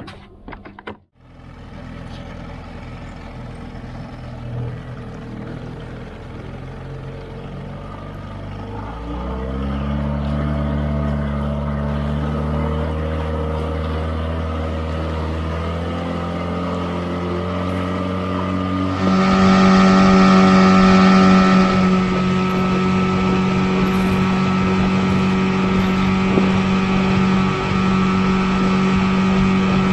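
Mercury outboard motor running: at low speed at first, its pitch rising about nine seconds in, then louder and steady at speed from about nineteen seconds, with water and wind rushing past.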